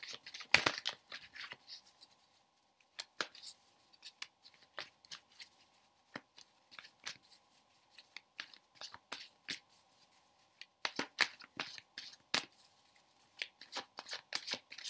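A deck of tarot cards shuffled by hand: a quick, irregular run of soft card snaps and clicks, thicker in the second half.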